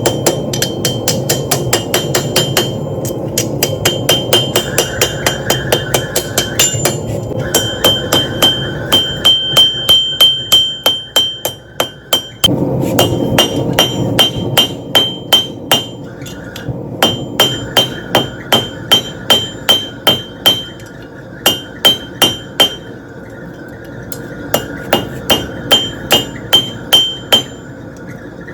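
Hand hammer forging a steel bar on an anvil: a long run of quick, even blows, about three or four a second, each with a bright metallic ring. There are a few short pauses.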